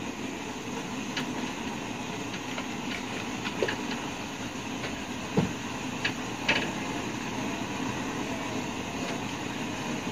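Steady background rumble with a few light clicks and taps, mostly around the middle, from a syringe and a small medicine vial being handled while a dose of sedative is drawn up.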